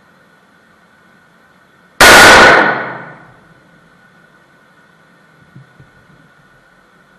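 A single gunshot, very loud, with an echoing tail that dies away over about a second. Two faint clicks follow a few seconds later.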